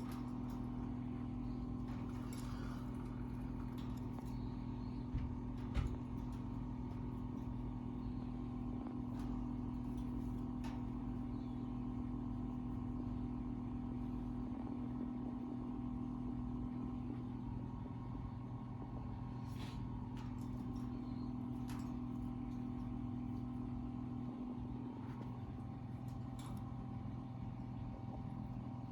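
A steady mechanical hum, with a few brief clicks scattered through it.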